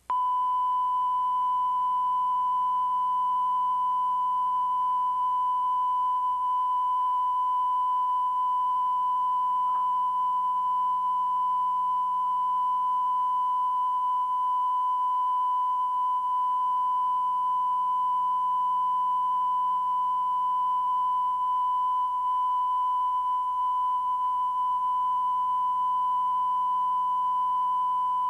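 Off-air test tone of a TV channel after sign-off: one steady, unbroken high-pitched beep that starts abruptly and holds at a constant pitch and level.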